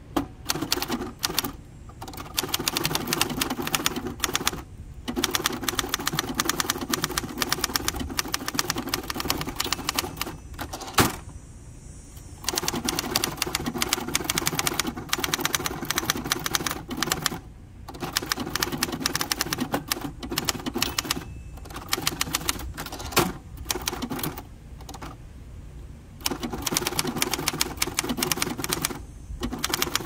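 A 1964 Hermes Ambassador manual typewriter being typed on: runs of rapid key and typebar clacks several seconds long, broken by short pauses. A single louder clack stands out about eleven seconds in.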